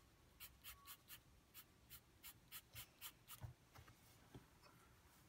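Faint, quick strokes of a soft 4B graphite pencil scratching on drawing paper, about three or four a second, as shadows are worked into the folds. They stop a little after three seconds in, followed by a couple of soft knocks.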